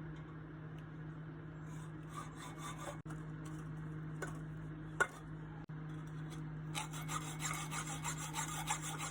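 Hacksaw cutting slits into the end of an exhaust pipe: rasping back-and-forth strokes that come quicker and closer together near the end. A steady low hum runs underneath.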